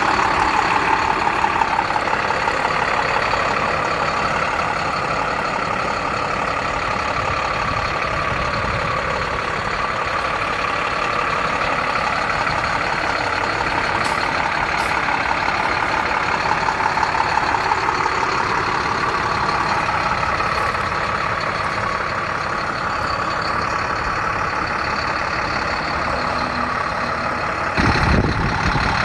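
International 4300 bucket truck's diesel engine running steadily at idle. Two brief clicks come about halfway, and a thump comes near the end.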